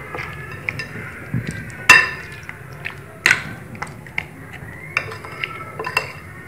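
A metal spoon clinking and scraping against a glass bowl while chicken pieces are stirred through a thick tandoori marinade. There are two sharp ringing clinks about 2 and 3.3 seconds in, with lighter taps and scrapes between them.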